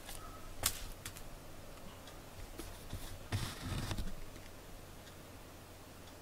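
Camera handling noise: a sharp click, a second smaller click, then a brief rustle and bump as the camera is set down on the desk.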